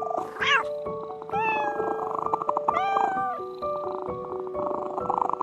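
Three short pitched animal calls over background music with a stepping melody: the first brief and rising, the second falling, the third rising, holding, then falling away.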